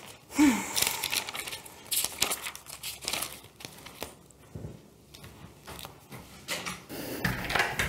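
Sheets of paper and a folder being handled and shuffled on a tabletop: irregular rustling with light clicks and knocks, busiest near the start and again near the end.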